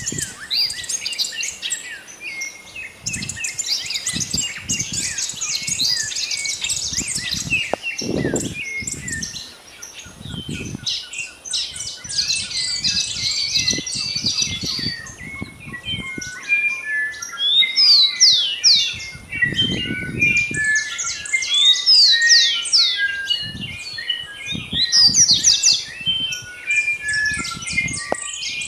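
Dawn chorus of many small birds chirping, trilling and calling at once, dense and overlapping with quick down-sweeping notes. Low muffled rumbles come and go beneath it.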